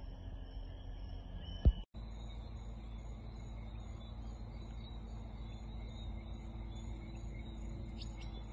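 Steady high insect trilling over a low rumble. A sharp knock comes just under two seconds in, then the sound drops out for a moment and the trilling carries on. A few short high chirps come near the end.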